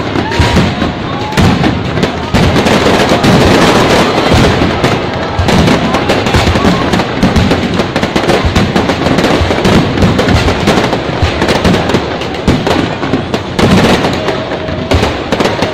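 Aerial fireworks going off in a dense, unbroken barrage of many bangs and crackles a second, loud enough to nearly overload the recording.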